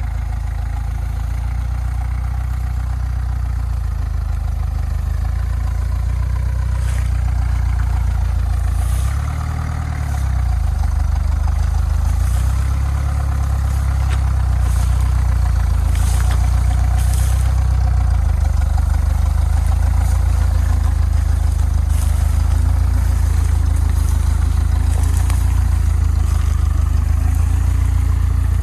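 Off-road SUV engine running at low revs under steady load as the vehicle creeps slowly out of a boggy crossing under its own power. The level eases briefly about nine to ten seconds in.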